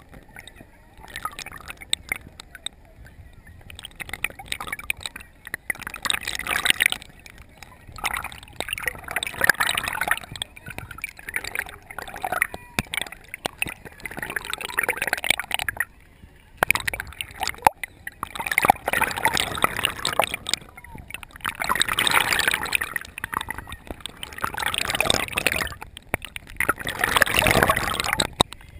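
River water sloshing and splashing against a waterproof GoPro camera housing held at the surface beside a moving boat, gurgling as waves wash over it. The splashing comes in uneven surges every couple of seconds.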